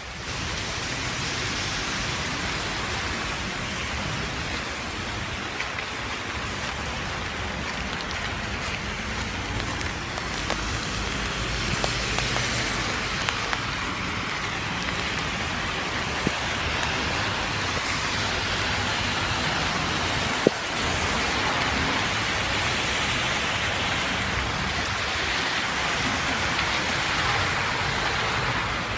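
Small hail pelting wet street pavement: a steady, dense hiss with a few sharp ticks, the sharpest about twenty seconds in.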